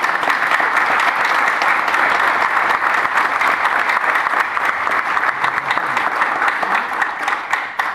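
A room full of people applauding, many hands clapping steadily. The applause starts to die away near the end.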